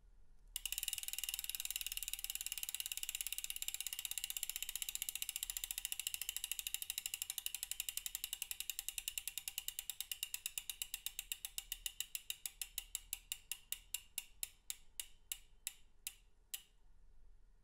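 DT Swiss 370 rear hub's three-pawl freewheel clicking as the spinning wheel coasts down: a fast buzz of clicks starting about half a second in that slows steadily into separate clicks and stops near the end.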